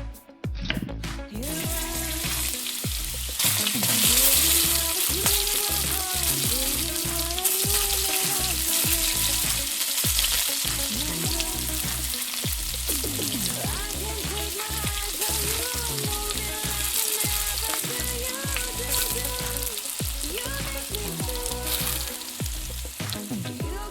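Food frying and sizzling in hot oil in a pan while matki usal is cooked, the sizzle growing louder a few seconds in. Background music with a wavering melody plays underneath.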